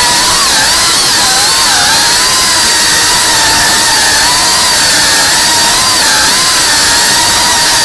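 FPV quadcopter's brushless motors and propellers whining in flight, the pitch wavering up and down as the throttle changes, over a steady hiss of rushing air.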